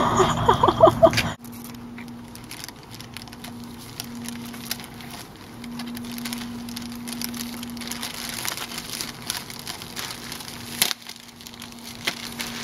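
Plastic snack bags crinkling and rustling as black bear cubs nose into them and tug at them with their mouths, over a faint, steady hum. A single sharp knock comes near the end.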